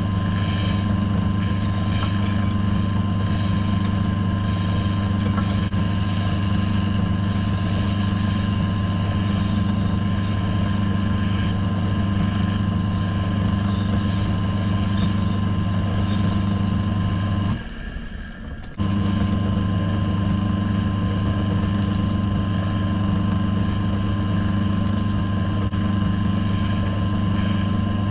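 Wood lathe's electric motor running at a steady hum as the mounted spindle turns. The hum drops out abruptly for about a second roughly two-thirds of the way through, then carries on unchanged.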